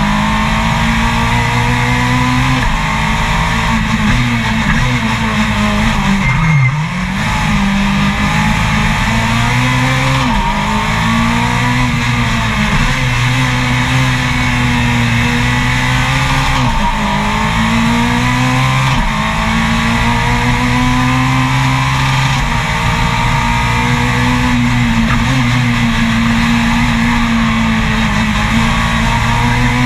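Race car engine running hard at high revs, heard onboard, its pitch dropping and climbing again several times through the run.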